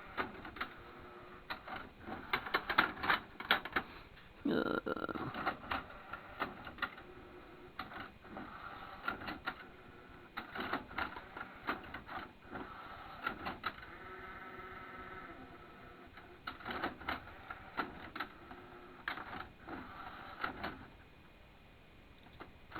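Buttons on a hi-fi stereo's front panel being pressed over and over, sharp plastic clicks coming in quick clusters. A steady tone sounds for about two seconds in the middle.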